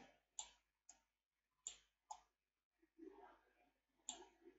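Faint, scattered computer mouse clicks, about six of them, over near silence.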